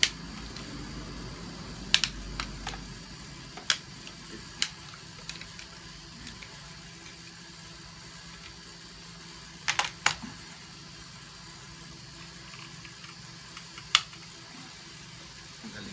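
Scattered sharp clicks and taps of an air rifle's metal and plastic fittings being handled, with a close pair of clicks about ten seconds in and one more near the end, over a faint steady hum.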